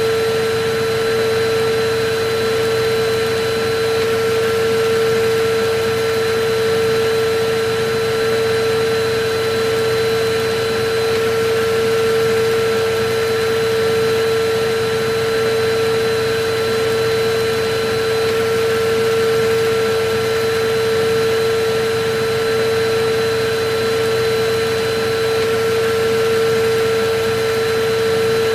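Electric vacuum cleaner running steadily: a continuous rushing motor noise with a steady whine.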